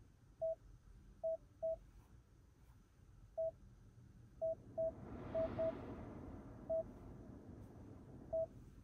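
Touch climate-control panel of a 2024 Hyundai Sonata beeping once with each button press: ten short, identical mid-pitched beeps at uneven intervals. About halfway through, the blower fan comes on and air rushes softly from the vents.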